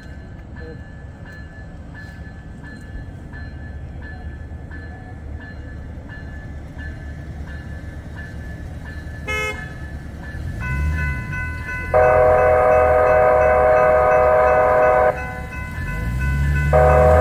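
A train approaches, first as a steady low rumble with a faint ticking about every two-thirds of a second. About eleven seconds in, a locomotive's multi-chime air horn sounds faintly, then gives a long loud chord of about three seconds. After a brief pause a second blast begins near the end, over a low engine drone that rises in pitch.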